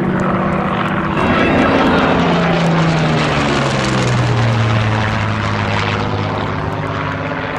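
Vintage single-engine piston fighter passing overhead: the engine and propeller drone is loudest about two seconds in, then its pitch drops steadily as the aircraft passes and draws away.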